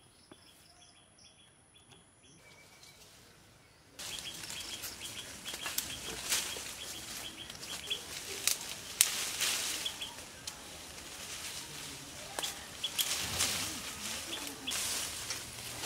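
Lychee tree leaves rustling and twigs cracking as fruit bunches are snapped off the branches by hand, starting about four seconds in after a quiet opening. Faint bird chirping runs underneath.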